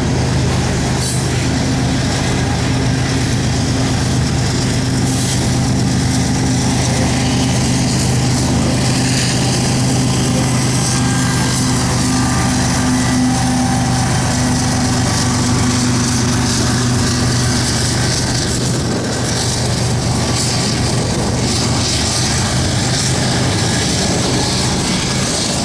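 Loaded coal train rolling past, the cars making a steady loud noise. Under it runs a low, even engine hum whose higher tone fades out about two-thirds of the way through.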